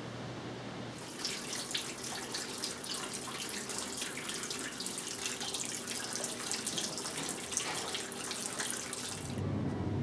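Running, splashing water, steady and dense, starting about a second in and cutting off about a second before the end.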